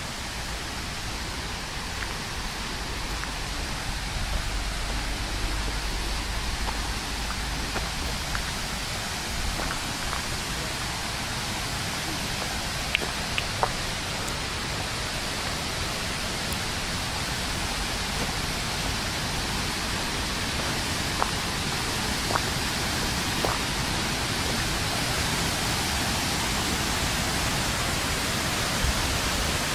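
Steady rushing noise that rises slightly in level, with a few faint ticks scattered through it.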